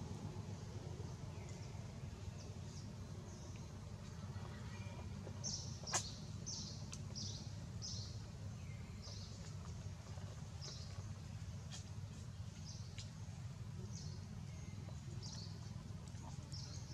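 Small birds chirping: short high chirps about once a second over a steady low rumble of background noise, with one sharp click about six seconds in.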